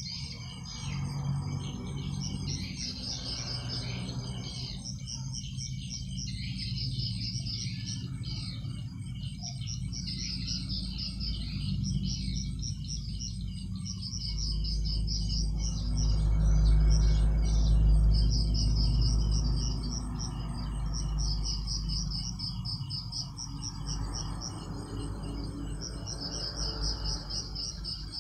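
Night chorus of crickets and other insects, several overlapping trains of rapid high chirps going on steadily. A low rumble underneath swells for a few seconds in the middle.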